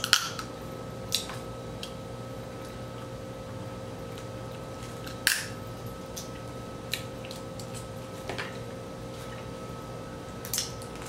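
A few sharp cracks and clicks, scattered several seconds apart, of boiled seafood shells being broken apart by hand while eating, the loudest about five seconds in, over a steady electrical hum.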